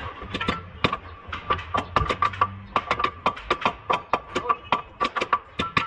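Ball-peen hammer rapidly striking the car's steel front suspension parts, about five blows a second, each with a sharp metallic ring.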